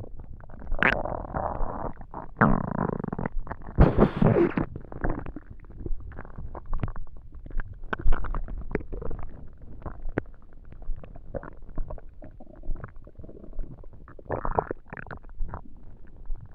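Empty human stomach rumbling and gurgling from hunger. Long gurgling surges come in the first few seconds, the loudest about four seconds in. After that come many short pops and squelches, with a smaller gurgle near the end.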